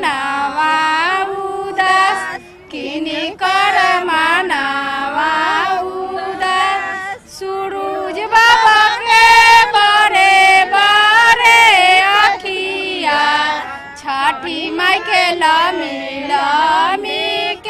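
A female voice singing a Chhath devotional folk song (Chhath geet): a slow, melodic line of long held notes with short pauses between phrases.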